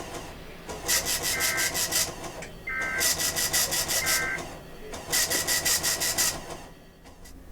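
Three bursts of EAS SAME digital data over NOAA Weather Radio. Each is a harsh buzzing warble about a second long, with about a second's pause between them, as sent at the start of a required weekly test.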